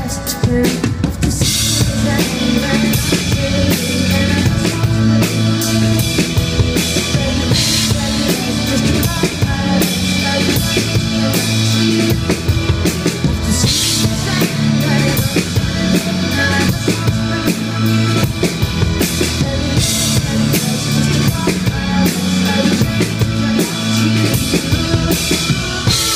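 Live rock-pop band playing an instrumental passage, led by a full drum kit with kick, snare and crash cymbals over keyboard chords. The drums come in hard about a second in, and a crash cymbal hits roughly every six seconds.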